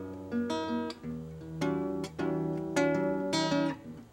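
Acoustic guitar strumming a run of chords, a new chord struck every half second or so, in an instrumental passage of a Brazilian popular song (MPB) between sung lines.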